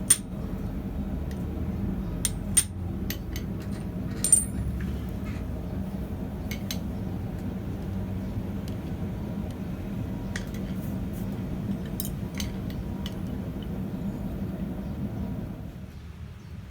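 Light metal clinks and clicks of small forged iron latch parts being handled, a dozen or so scattered sharp ticks, over a steady low hum that stops near the end.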